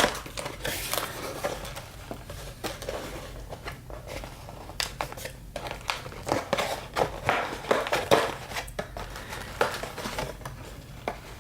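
Crinkling and rustling of packaging, with many small taps and clicks, as a box of trading cards and its packs are opened and handled.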